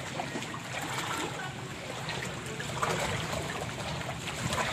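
Floodwater sloshing and trickling, with small irregular splashes, as someone moves through it.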